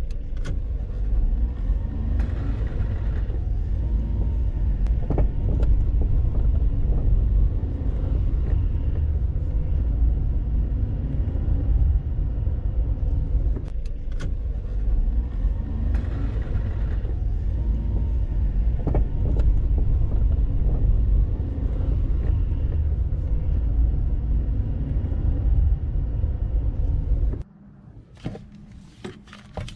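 Honda Vamos on the move, a steady low road rumble with occasional sharp knocks from the front suspension. This is the 'kotoko' knocking that the stabilizer bushings are being replaced to cure. The rumble cuts off suddenly near the end.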